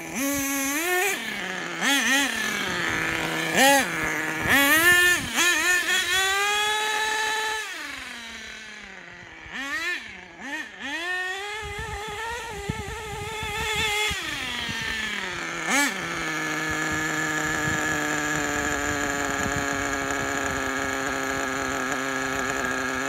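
Small nitro two-stroke engine of an HPI Racing RC ATV (Savage 25 based) revving in repeated blips and rising and falling runs, then idling steadily for the last third or so.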